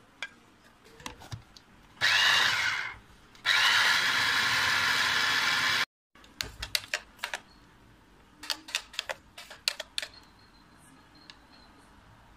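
Electric blender running in two bursts, about a second and then about two and a half seconds, blending mango and cream into an ice cream mix. Afterwards a spoon clicks and scrapes against the plastic blender jug.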